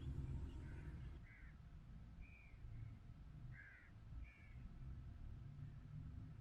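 Wind rumbling on the microphone, with a bird giving about five short calls over it.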